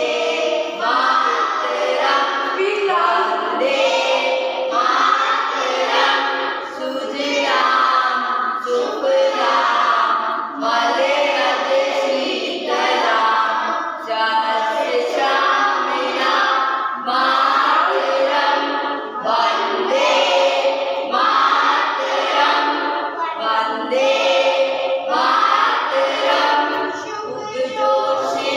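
A group of schoolchildren singing together in unison, a continuous sung melody in short phrases with no instruments.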